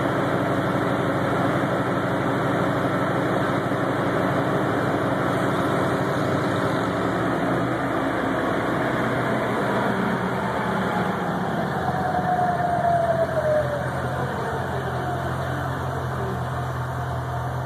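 Porsche 928S V8 running on a smog-test dynamometer with the rear wheels turning the rollers. About halfway through the engine note drops, and a whine falls steadily in pitch over several seconds as the car brakes and the wheels and rollers spin down.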